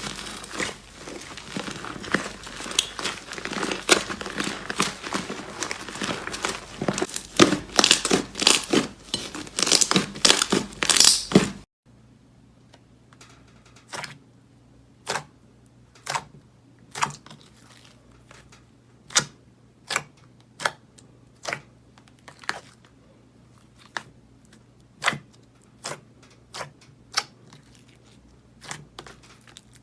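Slime being squeezed and worked by hand: dense crackling and crinkling for about twelve seconds, then after an abrupt cut, sparse single pops and clicks about once a second over a faint low hum.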